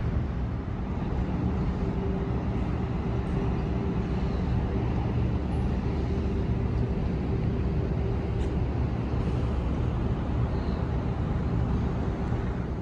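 Ferry's engines droning steadily: a low, even rumble with a thin steady hum running through it.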